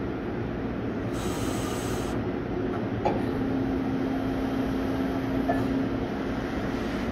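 You-Ji YV-1200 CNC vertical turning/milling center running under power, a steady mechanical noise. A click about three seconds in, then a steady hum joins until about six seconds in.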